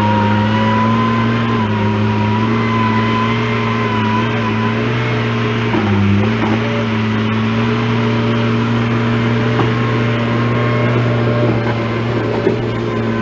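Engine running steadily at a constant speed, its pitch dipping briefly about six seconds in.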